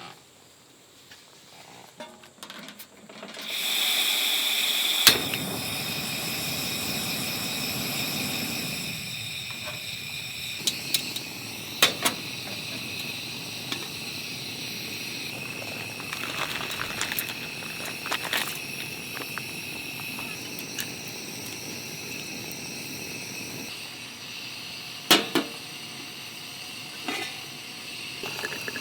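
A camping gas stove: gas hisses for a moment, a click comes as it lights, and the burner then runs with a steady hiss and low rush. A few sharp clinks of cookware are heard over it.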